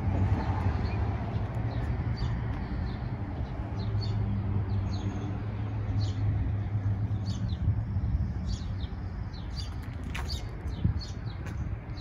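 Steady low engine rumble with small birds chirping repeatedly over it, the chirps thickening in the second half.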